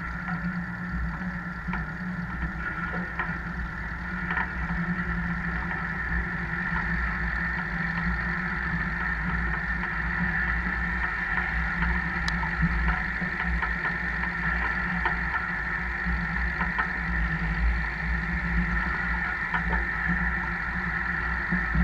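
Tractor-drawn field sprayer at work, heard from under its boom: a steady low drone of the tractor and sprayer running gear with the hiss of the nozzles spraying liquid fertiliser, and scattered light knocks and rattles from the boom.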